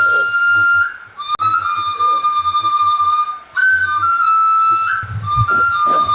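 Background music: a flute-like melody of long held high notes, stepping between a few pitches, with brief pauses about a second in and again midway. A few low thuds come near the end.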